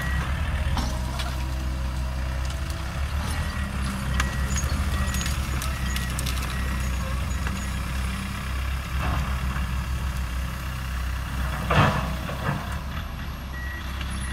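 Diesel engines of a farm tractor pulling a disc harrow and a Komatsu PC200 excavator running with a steady low drone, under short high beeps of a warning alarm that come and go. A sharp knock stands out about twelve seconds in.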